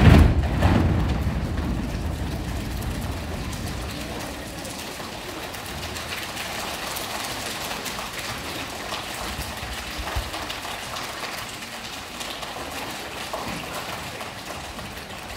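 Audience applause in a school hall, loudest at the start and fading over a few seconds into the steady murmur of a large crowd of children.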